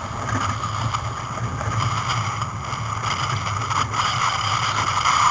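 Sailboat under way: a steady rushing of wind and water past the hull, with wind buffeting the onboard camera's microphone in an uneven low rumble.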